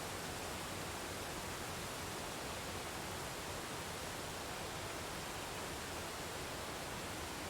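Waterfall rushing: a steady, even hiss of falling water with no single splashes or changes.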